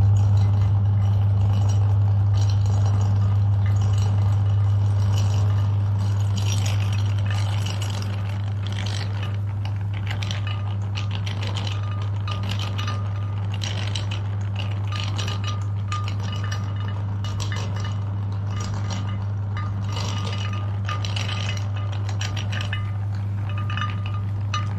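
Electric meat grinder running with a steady low motor hum, with irregular clinking and rattling from the grinder as clay slime goes through. The hum gets quieter about eight seconds in.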